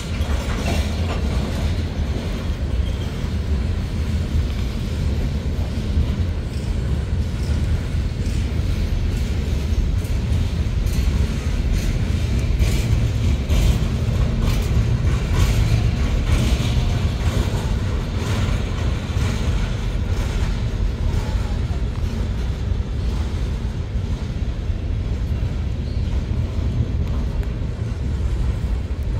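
Freight train of covered hopper cars rolling past: a steady low rumble of steel wheels on rail, with scattered clicks and clacks from the wheels and couplers.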